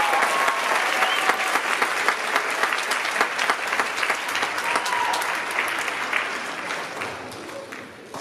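Audience applauding with a few cheers after an a cappella song, the clapping dying away over the last couple of seconds.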